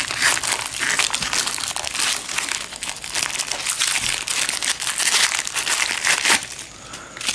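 Crinkly plastic packaging of a tourniquet being handled and opened, a dense run of crackles and rustles.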